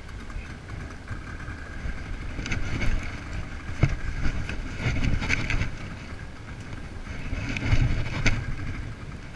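Wind buffeting the microphone of a head-mounted action camera, a rumble that swells and eases, with a few sharp knocks and clicks from handling the rod and spinning reel. A faint steady high tone sits underneath.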